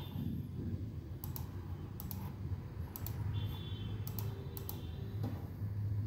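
Light clicks of keys being pressed, about eight scattered irregularly, some in quick pairs, over a steady low hum. A brief faint high-pitched tone sounds a little after three seconds in.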